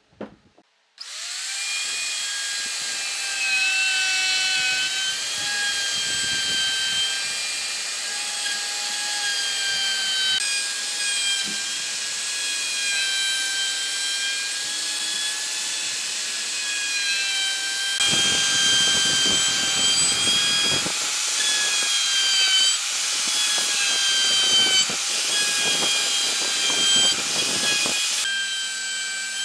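DCA electric plunge router starting about a second in after a brief knock, then running with a steady high whine as its bit cuts a recess into a solid wooden log.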